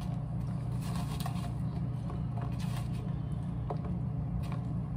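A steady low hum runs throughout, with a few faint crinkly crackles as Flamin' Hot Cheetos are handled and laid onto a sandwich on a paper plate.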